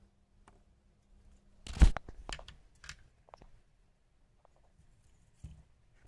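Handling noise: a sharp knock about two seconds in, then a few small clicks and rustles, and another knock near the end.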